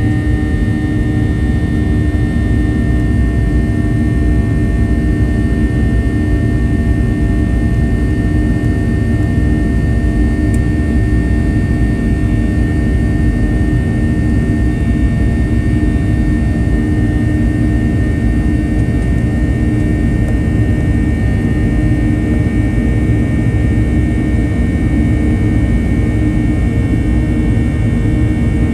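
Boeing 737-800 CFM56-7B turbofan engines running steadily during the climb-out, heard inside the cabin as an even rushing noise with a few steady droning tones.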